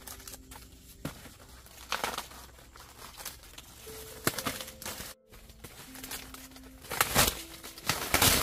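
Dry corn leaves and husks crinkling and crackling in several short bursts, the loudest near the end, over soft background music with a slow melody.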